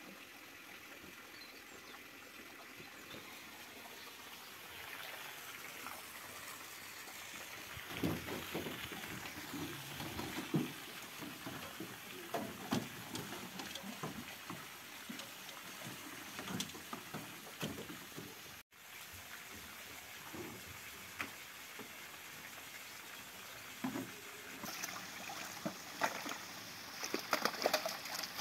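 Scattered knocks and handling noises over low outdoor background, then near the end a bucket of water holding live fish is tipped into a pond, with a rising pour and splash of water.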